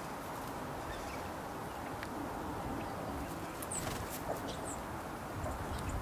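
Common starling pecking at a suet ball in a wire feeder: scattered light taps over a steady low rumble. Two short high bird chirps come close together past the middle.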